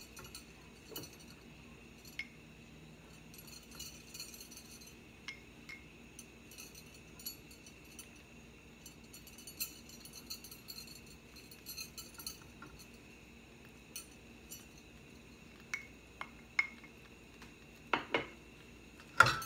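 Light, scattered taps and clinks of a basting brush against a glass dish as cornstarch is brushed onto raw chicken thighs, with a few louder knocks near the end.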